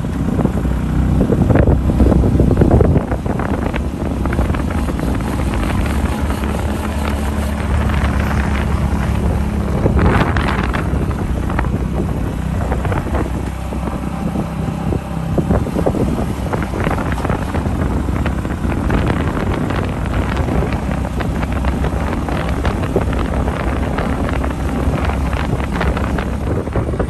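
Motorcycle riding along a road: a steady low engine rumble mixed with heavy wind buffeting on the microphone, with a brief louder rush about ten seconds in.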